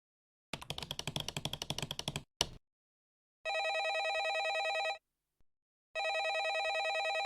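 A telephone ringing as a cartoon sound effect: warbling trilled rings about a second and a half long, with about a second between them. Before the rings comes a quick rattle of rapid clicks and a single click, like a number being dialled.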